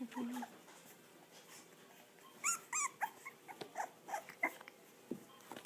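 Four-week-old English bulldog puppies whimpering and squeaking: a short low grunt at the start, then two high squeals about two and a half seconds in, followed by shorter squeaks.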